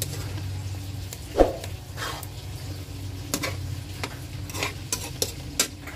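A metal spatula stirring a pot of simmering taro and vegetables, scraping and knocking against the metal pot at irregular moments, the loudest knock about a second and a half in. A low steady hum runs underneath.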